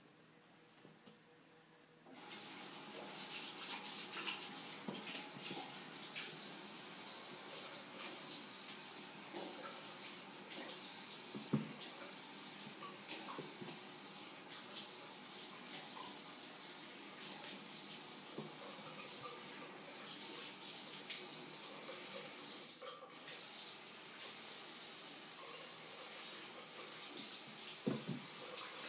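A steady hiss of running water switches on about two seconds in and keeps going, with scattered faint clicks and taps over it and one sharper knock near the middle.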